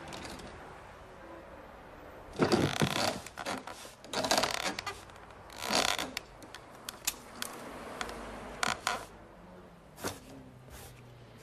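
Close, exaggerated film foley of handling and movement: three short scraping, rustling bursts separated by pauses, then a run of sharp clicks and taps.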